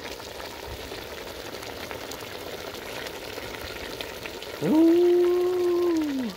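A pot of chicken with lemongrass and chilies sizzling and bubbling on the heat, a steady hiss. Near the end a louder long held tone cuts across it, sliding up at the start and falling away as it stops.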